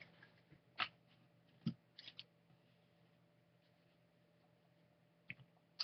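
Near silence broken by a handful of faint, short ticks and rustles of trading cards being handled and slid against one another, over a low steady room hum.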